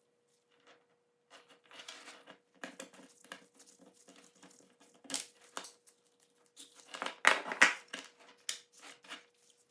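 Bicycle chains clinking and rattling as they are handled, irregular metal clicks with a louder jangle about five seconds in and a busier stretch near the end, while the new 9-speed chain is sized against the old one.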